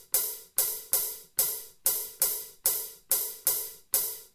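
Alesis SR-16 drum machine's 'Half Hat' half-open hi-hat sample, triggered over and over at about two and a half hits a second. Each hit is a sharp, bright strike that rings out briefly.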